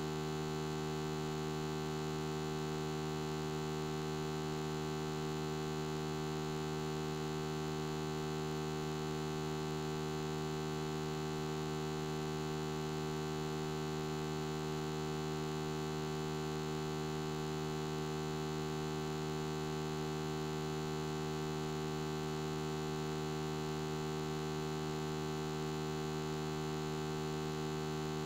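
Steady electrical mains hum: an unchanging buzz with a strong low tone and a dense stack of overtones, with no other sound.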